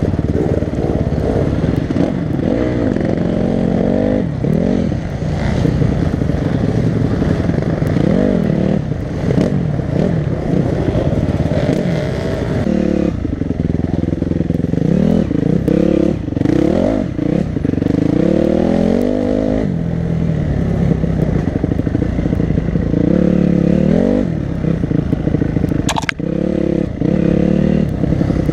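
Dirt bike engine revving hard and easing off over and over as the rider accelerates and brakes along a rough dirt track, the pitch climbing and dropping every second or two.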